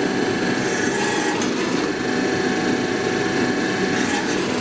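Powered riveting machine running with a steady, fast mechanical rattle, heard as a video played back.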